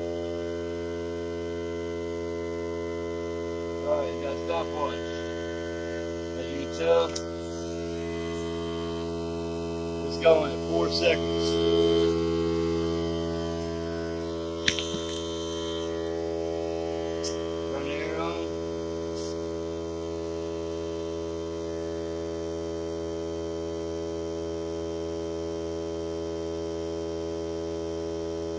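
Hart 20-volt cordless 2-gallon air compressor running with a steady hum while it inflates a car tyre through a clip-on chuck. A few brief sharp sounds rise over it in the first twenty seconds.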